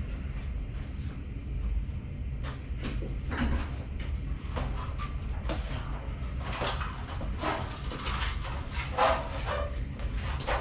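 Metal parts being handled and fitted by hand: an irregular series of clanks, knocks and scrapes over a steady low hum.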